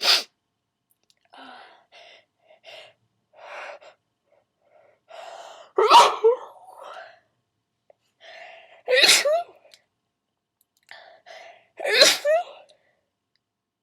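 A person in a sneezing fit: a short sneeze right at the start, then three loud sneezes about three seconds apart, each preceded by a few hitching, gasping in-breaths.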